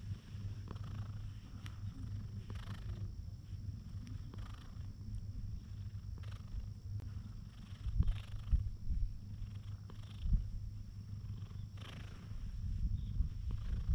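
Tabby-and-white cat purring steadily and low while being stroked. A few low thumps come in the second half.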